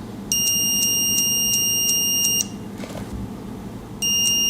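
Multimeter continuity beeper sounding as the probes touch pencil graphite: a steady high beep of about two seconds, then another starting near the end, showing that the graphite conducts electricity.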